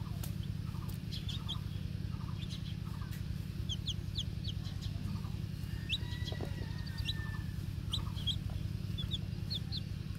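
Young chicks peeping while they feed: many short, high cheeps scattered irregularly, with a few lower clucks in the first few seconds. A steady low rumble runs underneath and is the loudest part.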